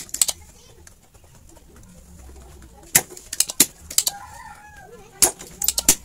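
Sharp clicks in small irregular clusters: two near the start, several around three to four seconds in, and more near the end, with a short warbling call a little after four seconds.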